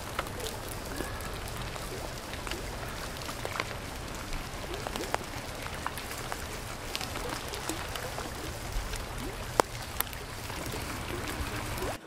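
Water dripping and trickling, with many scattered sharp drips at irregular times, the sharpest about two and a half seconds before the end, over a steady low rumble.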